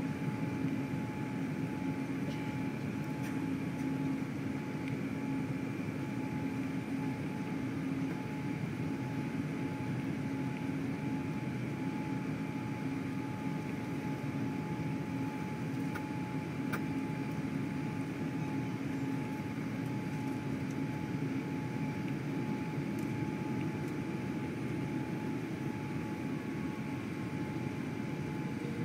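Steady cabin noise inside a Boeing 787-8 on final approach: the rush of airflow and its Rolls-Royce Trent 1000 engines running, with a steady low hum and a fainter higher tone.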